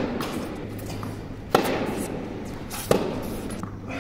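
Tennis rally: two sharp pops of a tennis ball about a second and a half apart, echoing in a large indoor tennis hall.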